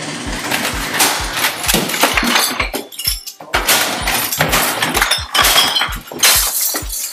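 Loud, chaotic crashing and clattering as things are knocked about and smashed in a room, over a hip hop beat thumping about twice a second.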